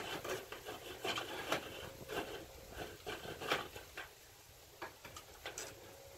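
Scattered light clicks and taps of hand work on aluminium screen frames as insect screening is fitted, coming irregularly about once or twice a second.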